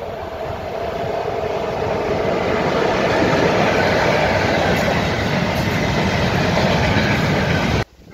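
Freight train of open coal wagons running past close by, louder over the first few seconds as it comes alongside, then steady wheel-on-rail noise. It cuts off suddenly just before the end.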